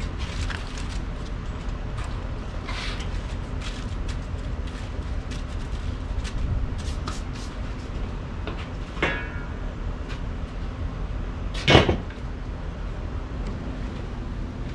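Handling at a charcoal kettle grill over a steady low background rumble: small clicks and knocks, a short metallic clank about nine seconds in, and a sharp, louder knock near twelve seconds as the foil-wrapped ribs go onto the grate and the metal lid is set on.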